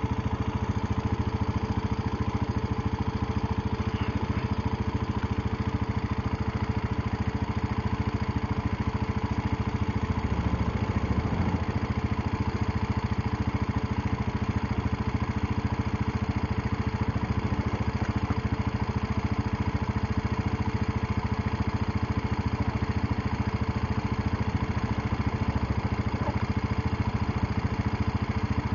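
Small off-road vehicle engine idling steadily close by: one even hum that holds the same pitch throughout, with no revving.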